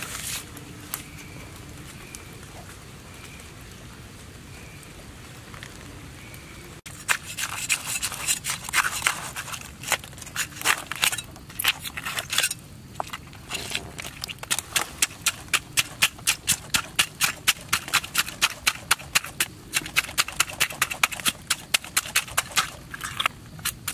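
Cleaver scraping the scales off a large fish: sharp rasping strokes start about a quarter of the way in and settle into a steady rhythm of about two to three strokes a second.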